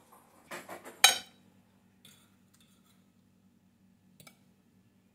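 A fork and knife clinking against crockery as pieces of roast meat are served onto a plate: a quick run of clinks about half a second in, the loudest about a second in, then a few softer clicks.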